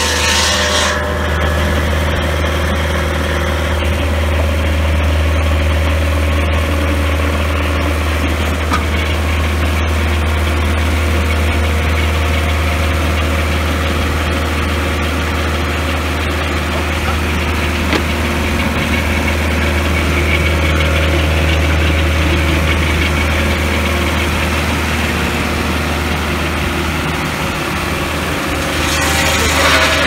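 Swingblade sawmill's engine running steadily after the blade stops cutting about a second in. Near the end, the hiss of sawing through wood starts again.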